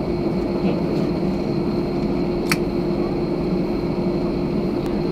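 Cabin noise inside a jet airliner taxiing: a steady drone from the engines and air system with a constant low hum, and a single brief click about halfway through.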